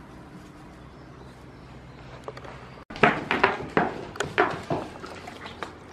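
Goat biting into and chewing a tomato: a run of sharp, wet crunches at an uneven pace, starting about halfway through after a quiet stretch.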